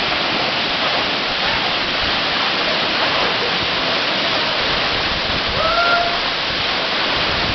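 Waterfall pouring with a steady, even rush of water.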